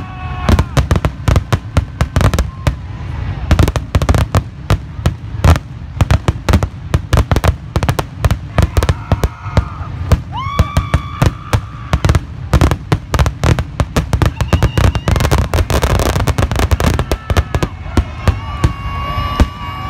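Aerial fireworks shells bursting in a rapid, near-continuous barrage of loud bangs and crackles.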